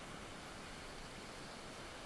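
Steady hiss of surf washing on a sandy shore.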